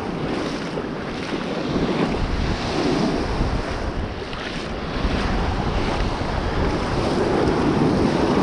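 Shallow surf washing and foaming, with wind buffeting the microphone in a steady low rumble.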